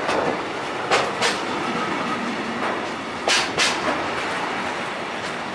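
Container flat wagons of an intermodal freight train rolling past with a steady rumble, broken by sharp clicks in pairs as each wagon's wheels cross a rail joint, a pair about every two and a half seconds.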